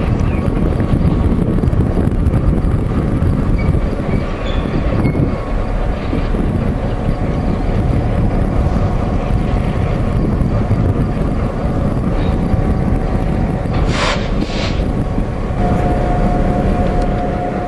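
Diesel-electric locomotives, an EMD F7 leading, running at low speed with a steady low rumble. About fourteen seconds in come two short bursts of hiss, and a steady high tone starts a moment later.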